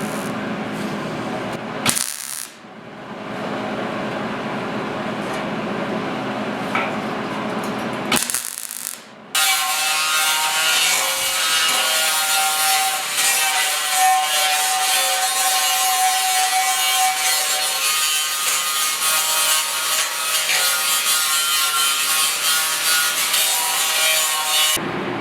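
Hand-held power grinder working on a steel running board, a steady abrasive hiss with a motor whine through it. It comes in several pieces, breaking off briefly about two seconds in and again about eight seconds in, and the longest, loudest stretch runs from about nine seconds on.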